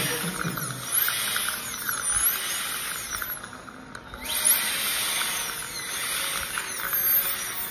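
High-speed dental drill (air-turbine handpiece) whining against teeth, its high pitch sagging and recovering as it bears on the tooth, with a hiss of water spray. It fades for a moment about three and a half seconds in and starts again with a rising whine just after four seconds.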